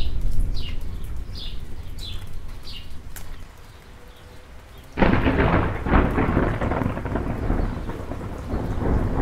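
Thunder rumbling low and dying away while a bird calls repeatedly with short falling chirps. About five seconds in, a loud thunderclap breaks suddenly and rolls on over steady rain.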